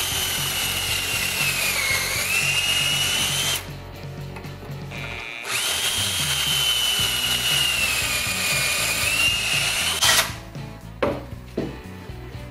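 Drill boring two pocket holes through a Kreg HD pocket-hole jig into timber, two runs of about four seconds with a short pause between. The motor's whine dips in pitch as the bit bites deeper, then rises again. A few short knocks follow near the end.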